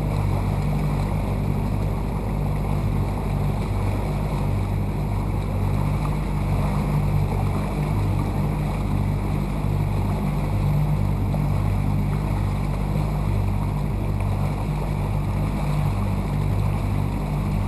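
Boat motor running steadily with the boat under way, its low hum flickering over wind noise on the microphone.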